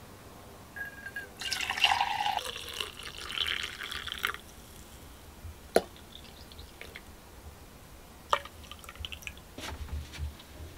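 Hot chocolate poured from a stainless steel saucepan into insulated steel mugs: a splashing stream for a few seconds, then a couple of single sharp knocks.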